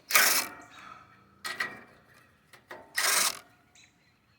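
A ratchet wrench working the 7/16 fan nuts on an air conditioner, in three short bursts of rapid ratcheting clicks with small metal rattles between them.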